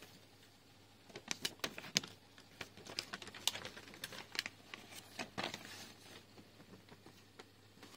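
Light handling sounds: a run of small sharp clicks and taps, with a brief papery rustle about five seconds in as the instruction booklet is moved.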